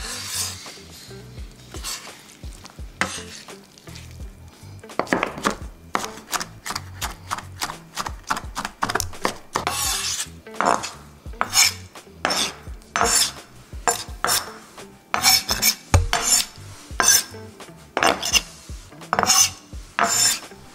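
Large kitchen knife mincing diced pear, kiwi and strawberry on a wooden cutting board, each stroke knocking against the wood. The chops are sparse at first, then come steadily, about one to two a second, from about five seconds in.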